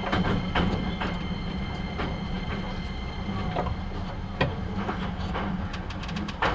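Running sound heard inside a Hankyu 9300 series train as it slows on the approach to a station: a steady low rumble with sharp clicks of the wheels passing rail joints and points, and a quick run of clicks near the end.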